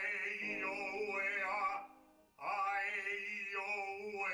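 An elderly operatic baritone singing loud sustained notes with a steady vibrato, in two phrases split by a short breath about two seconds in. The tone carries the bright, ringing core (squillo) that comes from chest-voice energy.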